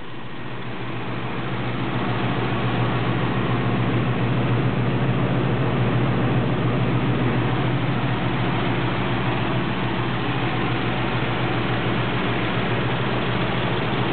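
1976 Oldsmobile Ninety-Eight's 455 cubic-inch V8 idling steadily after a cold start, a smooth, even idle that the owner likens to purring like a kitten. It grows a little louder over the first couple of seconds, then holds steady.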